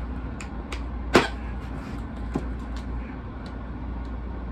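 Cardboard mailer box being slit open with a folding knife and its flap handled: a few light clicks and scrapes, with one sharper click about a second in, over a steady low hum.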